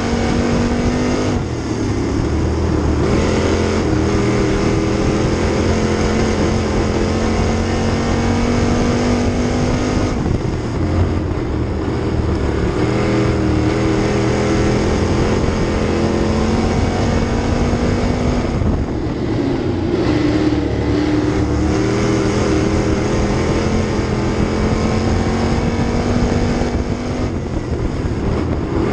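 Sportsman dirt late model race car's V8 engine running hard, heard from inside the cockpit. The engine note climbs slowly along each straight, then dips briefly and picks up again about every eight to nine seconds as the car eases off for the turns and gets back on the throttle.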